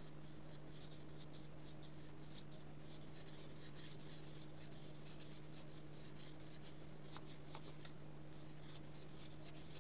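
Faint, repeated strokes of a paintbrush spreading gouache across paper, over a steady low hum.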